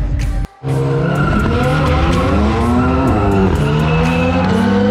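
Car accelerating hard down a drag strip. Its engine note starts suddenly about half a second in and climbs in pitch, breaks about halfway through as it shifts gear, then climbs again.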